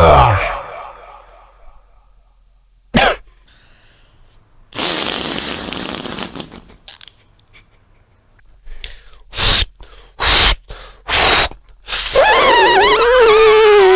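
A beatboxer making mouth sound effects: a sharp burst, a long hiss, three short explosive bursts like coughs or sneezes, then a wavering, slowly falling voiced tone near the end.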